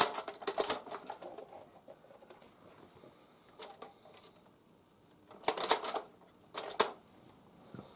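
Tippmann Boss hand-powered leather sewing machine clacking as it is worked through stitches: groups of sharp mechanical clicks at the start, briefly about three and a half seconds in, and again around five and a half and near seven seconds, with pauses between strokes.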